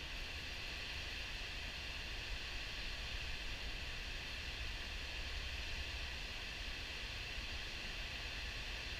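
River water pouring over a diversion dam's spillway at high flow, a steady rushing with a low rumble underneath.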